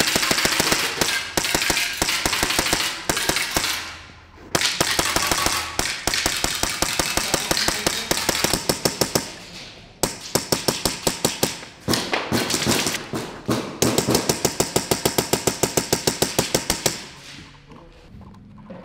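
Airsoft gun firing in long rapid full-auto bursts, a quick even rattle of shots, with short breaks about 4, 10 and 12 seconds in; the firing stops a second or two before the end.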